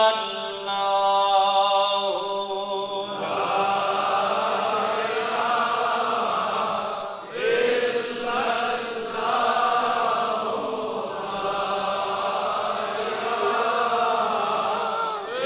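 Male congregation chanting zikr, devotional repetition of the name of God. A single voice holds a long note first, then many voices take up the chant together about three seconds in, with a brief break in the phrase about seven seconds in.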